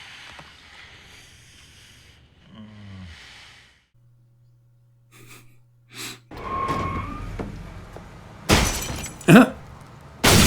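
TV drama soundtrack: a quiet stretch with a brief low hum, then a swelling rumble and two sudden loud crashes in the last two seconds, the start of an explosion.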